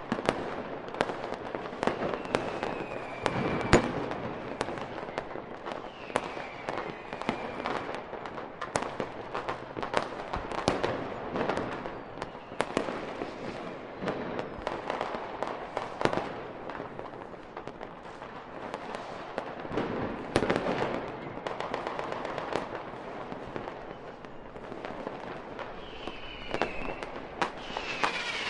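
Fireworks display: a continuous barrage of sharp bangs and crackles. A few whistles falling in pitch are heard, early on and again near the end.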